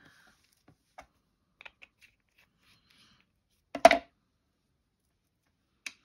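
Hands working with craft supplies on a table: a few light clicks and taps, then one louder brief clatter about four seconds in, and another small click near the end.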